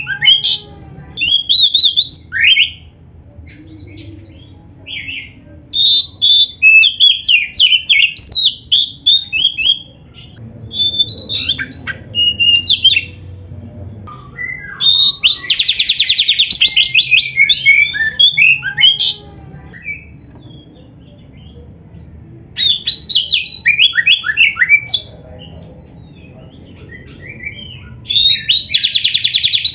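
Oriental magpie-robin (kacer) singing loud, varied phrases of whistles, glides and chatter, broken by pauses of a few seconds. A fast trill comes around the middle and again near the end.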